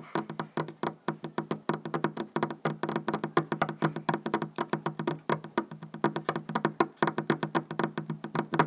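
A fast, steady run of sharp wooden taps, about seven a second, over a steady low hum: a tapped sound effect standing for running footsteps.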